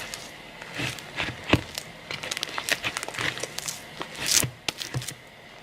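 Hands kneading fluffy slime made from glue and shaving cream: irregular sticky squelches and crackling clicks, with a longer squishing swish a little past the middle.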